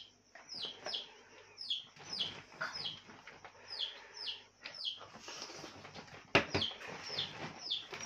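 A small bird chirping over and over, short falling chirps two or three a second. About six seconds in there is one sharp knock, the loudest sound.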